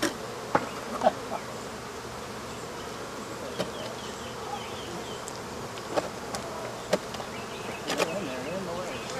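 Swarm of Africanized honey bees buzzing steadily around an opened wall hive, with a few short knocks and scrapes from the removal work.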